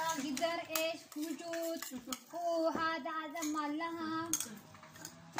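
Spoons clinking now and then against plates, a few sharp clinks, under a voice singing a held, wavering melody that is the loudest sound.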